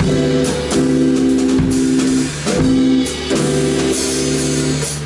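Live band playing a slow tune in rehearsal: guitar chords held about a second each, with drum kit and bass.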